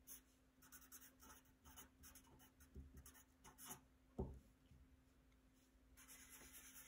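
Faint black felt-tip marker writing on paper: short scratchy strokes as a word is lettered, then one longer continuous stroke from about six seconds in. A soft thump about four seconds in.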